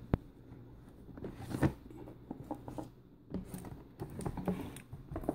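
Plastic Blu-ray cases being handled and slid out of a cardboard box: a sharp click just after the start, then scattered light scrapes and soft knocks of plastic against cardboard.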